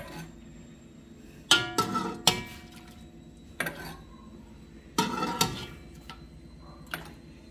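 Metal ladle clinking against the rim and sides of a cooking pot while ladling out quince syrup: about eight sharp clinks in small groups, several with a short metallic ring.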